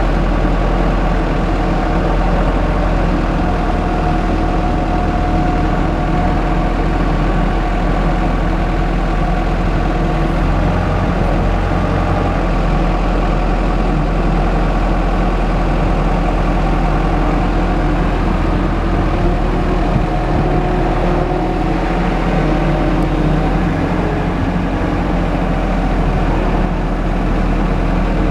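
Diesel engine of a Komatsu PW160 wheeled excavator running steadily.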